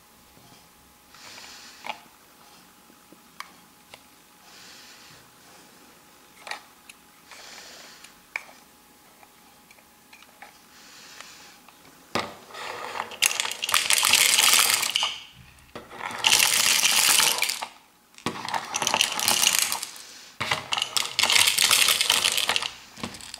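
Perler bead sweeper, a clear plastic hand-pushed roller, rolling over a cutting mat and flicking loose plastic fuse beads up into its tray: a loud rattling clatter in four long passes in the second half. Before that there are only faint swishes and a few sharp clicks.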